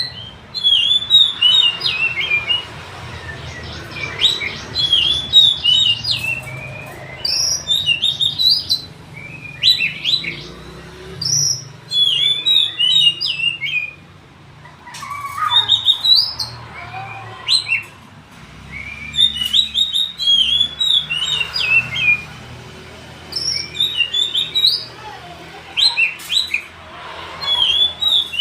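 Oriental magpie-robin (kacer) singing: bursts of quick, varied whistled and chirping notes lasting a few seconds each, separated by short pauses, over a steady low hum.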